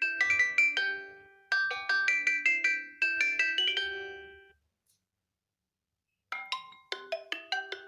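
Xiaomi Redmi 6A (MIUI) ringtone: a short, bright melody of quick struck notes that ring and decay, played twice and dying away about four and a half seconds in. After a second or two of silence, a different ringtone melody starts.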